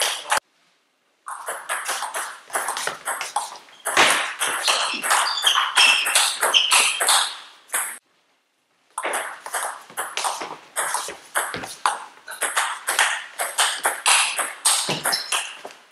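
Table tennis rallies: the celluloid ball clicking off the rubber bats and the table in quick succession. The sound drops out to dead silence twice, briefly, about half a second in and about eight seconds in.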